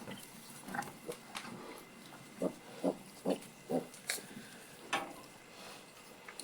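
Pigs grunting: a run of four short, low grunts about half a second apart a little past the middle, with a few sharp clicks or knocks around them.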